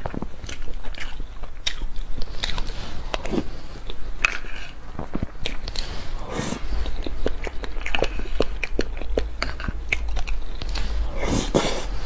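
Close-miked mouth sounds of eating a soft strawberry cream dessert off a spoon: a steady run of wet clicks and smacks of lips and tongue. Longer breathy sounds come about six and a half seconds in and again near the end.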